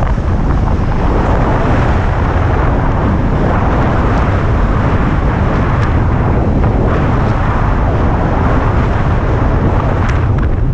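Steady, loud rush of airflow buffeting the camera microphone as a speed wing flies at speed.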